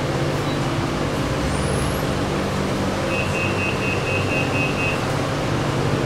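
Steady low hum inside a BTS Skytrain car. About halfway through, a door-closing warning of about seven quick, evenly spaced high beeps sounds, roughly four a second.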